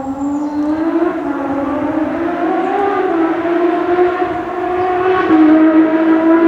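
Porsche racing car's flat-six engine running at high revs and holding one steady, high note. The pitch rises slowly in the first second, wavers a little, then settles and grows louder near the end.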